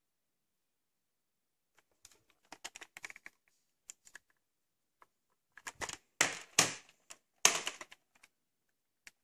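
A plastic VHS cassette being handled and turned over in the hand: scattered light clicks from about two seconds in, then several louder rubbing scrapes in the second half.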